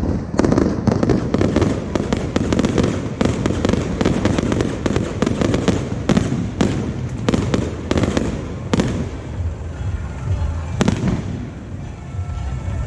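Fireworks display going off continuously: a dense stream of rapid bangs and crackling over a low rumble, with a couple of sharper, louder reports in the second half.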